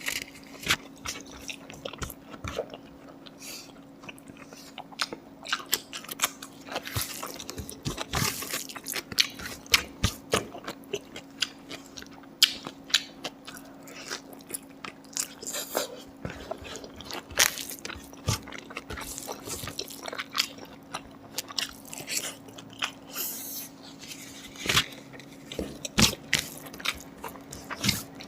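Close-up chewing and biting of pork: irregular crunchy bites and wet mouth clicks, over a faint steady hum.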